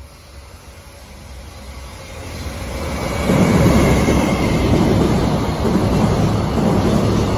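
A freight train hauled by a JR Freight EF210 electric locomotive approaches and passes. Its rumble grows louder over the first three seconds, then holds at a loud, steady rumble of wheels on the rails as the train goes by.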